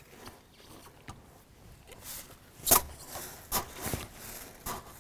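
Handling knocks: one sharp knock about halfway through, then a few lighter clicks and knocks as a rifle and the tyre it rests on are shifted.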